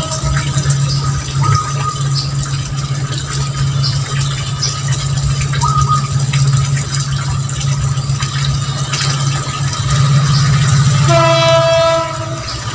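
A steady low hum, and near the end a horn-like tone held for about a second.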